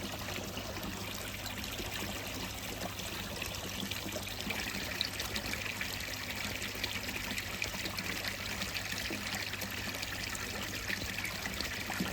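Filtered water returning into a koi pond, a steady trickling and pouring.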